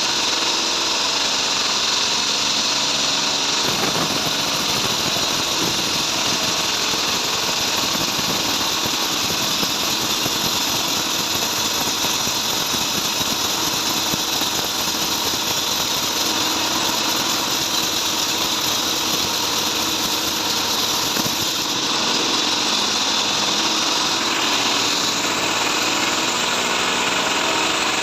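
Sawmill bandsaw running steadily as its blade saws trembesi (rain tree) wood. The sound turns rougher about four seconds in.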